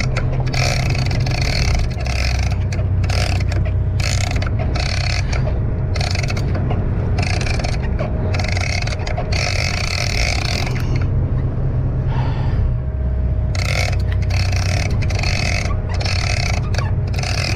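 Shimano Tiagra lever-drag big-game reel being cranked, its handle strokes coming as a run of rough, uneven whirring bursts that pause for a couple of seconds past the middle. A boat engine drones steadily underneath.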